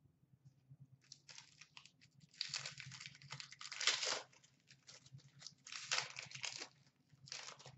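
Trading-card pack wrapper crinkling and tearing as it is pulled open by hand, in a run of rustling handling noises, loudest about four seconds in.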